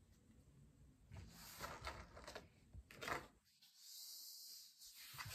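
Tarot cards being handled and shuffled on a desk: a few faint taps and rustles, then a faint steady hiss from about three and a half seconds in.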